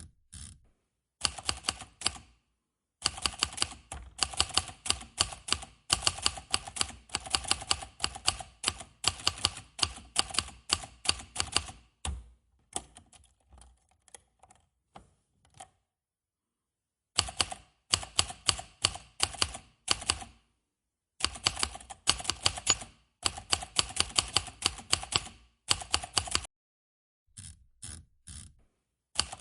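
Manual typewriter being typed on: keys striking in quick runs of several clacks a second, broken by short pauses and one silent gap of over a second about halfway through.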